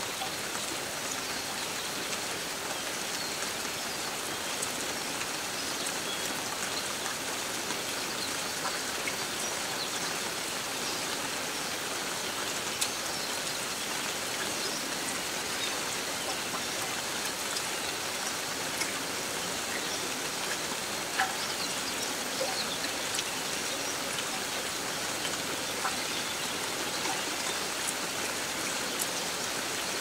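Steady rain falling on leaves and surfaces: an even hiss with scattered drop ticks and a few louder single drips now and then.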